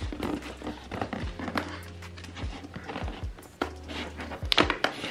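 Scissors cutting through the packing tape on a cardboard shipping box: a run of clicks, snips and scrapes on the cardboard, the loudest about four and a half seconds in. Background music plays throughout.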